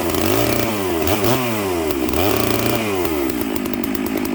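Stihl MS 650 two-stroke chainsaw, freshly rebuilt with new bearings and seals, running cold: it is revved up and back down three times, then settles to a steady idle near the end.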